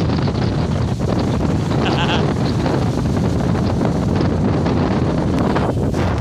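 Strong typhoon wind gusting and buffeting the microphone with a heavy, steady rumble. A short high-pitched call cuts through about two seconds in.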